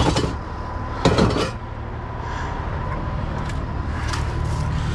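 Junk being handled in a dumpster: a knock at the start and a short clatter about a second in, over a steady low rumble.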